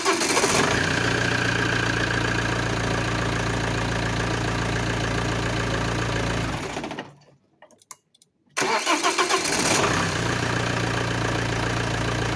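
Alfa Romeo 156 JTD common-rail diesel engine turned over by a replacement starter motor, catching within about a second and settling into a steady idle. It stops about 7 seconds in, and after a short silence the same crank, catch and idle is heard again. The starter now cranks the engine, so the no-crank fault is cured.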